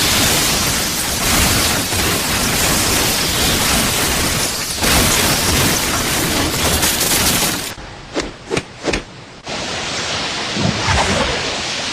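Naruto anime sound effect of Chidori, the lightning jutsu: a loud, steady electric crackling hiss. About eight seconds in it drops away to a few sharp crackles, then the hiss comes back.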